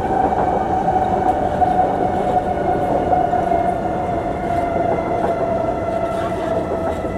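Singapore MRT metro train running, heard from inside the passenger car: a rumble of wheels on track under a steady motor whine that sinks slowly in pitch.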